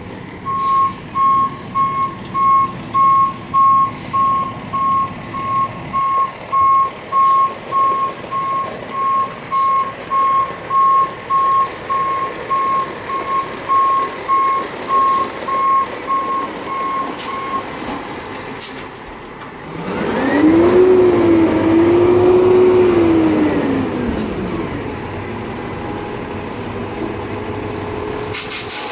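Dump truck's reversing beeper, a steady high beep about one and a half times a second, as the truck backs in. It stops, and then the truck's engine revs up, holds for a few seconds and drops back.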